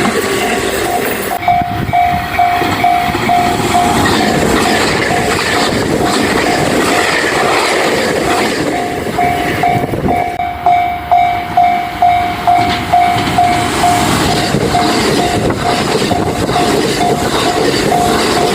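Japanese level-crossing warning bell ringing in a steady repeating ding, a couple of times a second, while a train passes over the crossing. Its wheels clatter over the rail joints in a regular rhythm, loudest in the middle.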